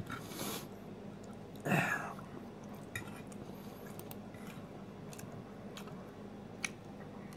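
Quiet eating sounds: a metal fork clicking and scraping on a plate as a piece of meat pie is cut and lifted, with chewing. A short, louder breathy sound comes just under two seconds in.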